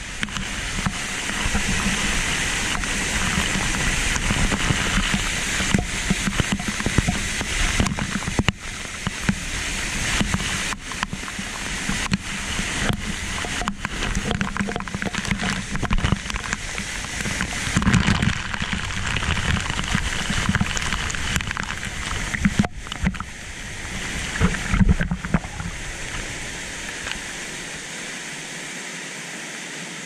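Waterfall pouring down close by: a dense rush of falling water and spray, with frequent sharp spatters of drops hitting the camera. The deep rumble drops away near the end.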